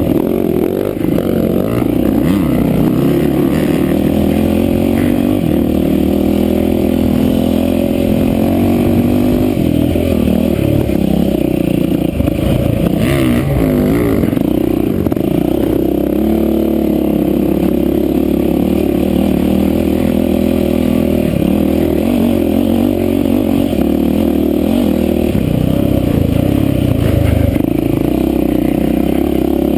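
Yamaha WR450F's 450 cc single-cylinder four-stroke dirt-bike engine ridden hard on a rough woods trail, revving up and down constantly with the throttle.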